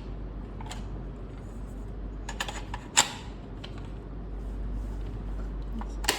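Small clicks and taps from an M.2 SSD being seated by hand in a docking station's tool-free, screwless slot. There are a few light clicks, one sharp click about three seconds in, and another near the end.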